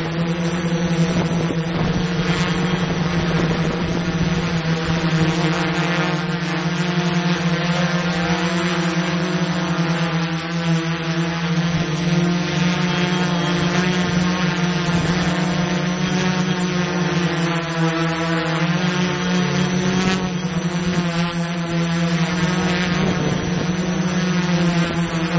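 Small camera drone's propellers humming steadily in flight, one steady pitch with overtones that wavers briefly about twenty seconds in.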